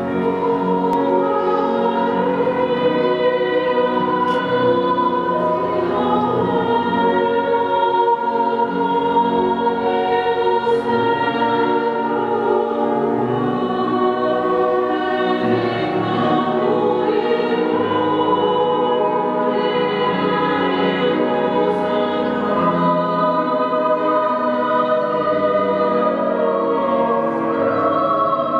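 Women's choir singing in slow, sustained chords.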